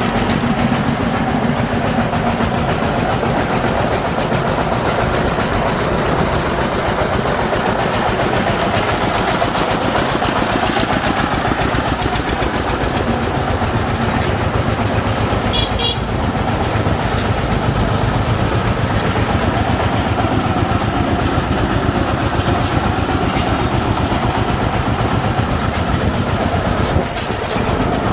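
Single-cylinder diesel engine of a công nông three-wheeler chugging steadily under way. A short high-pitched beep sounds about sixteen seconds in.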